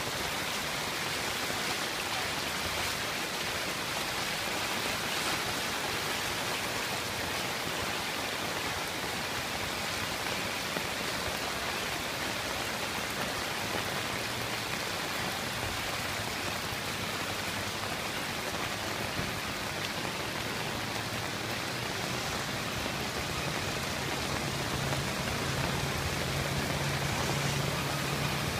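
Steady hiss of heavy rain and running water, unchanging throughout; a low steady hum comes in near the end.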